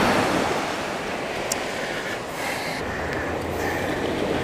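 Steady wash of surf breaking on the beach, swelling and easing, with some wind on the microphone.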